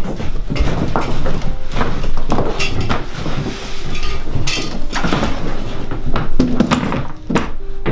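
Household handling noise: irregular knocks, clunks and rustling as bundles, a quilt and a suitcase are carried in and set down on a wooden bench, with footsteps on wooden floorboards.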